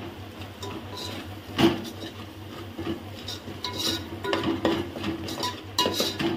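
A metal spoon stirring and scraping against the inside of an aluminium pot, mixing freshly added chilli powder into onion masala frying in oil. There are repeated short clinks and scrapes, with the loudest clank about one and a half seconds in.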